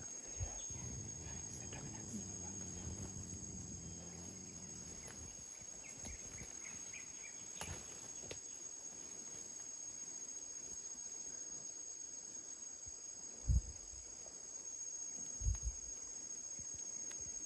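Steady high-pitched drone of insects, with a couple of dull low thumps near the end.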